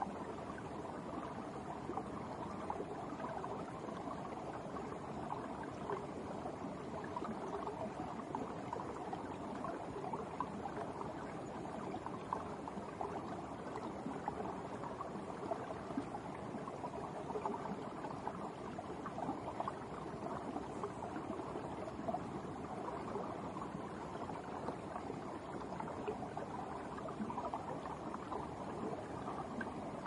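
A winter brook's water flowing under ice, running steadily without a break.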